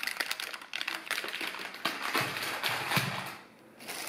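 Plastic produce bags crinkling and rustling as they are handled, a dense run of quick crackling ticks that pauses briefly about three and a half seconds in.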